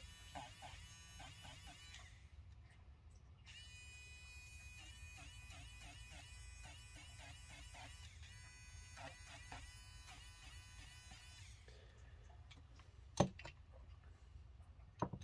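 Battery electric eraser whirring as it rubs pencil off drawing paper. Its whine dips and rises in pitch as it is pressed and lifted, pauses briefly about two seconds in, and stops near the end. Two sharp clicks follow as it is put down.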